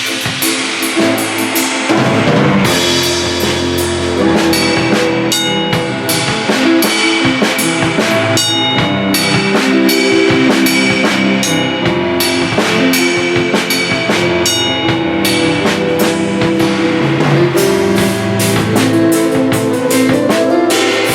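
A large drum kit with many cymbals played in a continuous groove, the hits and crashing cymbals over sustained piano chords. The drums sit somewhat back in the mix.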